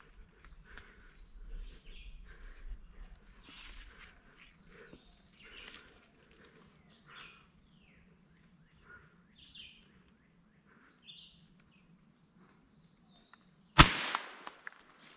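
Scattered faint bird chirps over a steady high insect drone, then near the end a single sharp rifle shot from a scoped hunting rifle.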